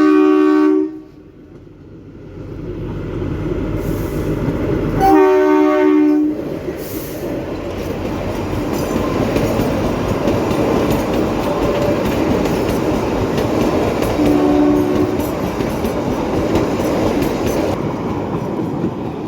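Narrow-gauge Kalka–Shimla toy train sounding its horn three times: a blast right at the start, another about five seconds in, and a shorter one about fourteen seconds in. Between the blasts the train's running noise builds and then holds steady as it comes through the station.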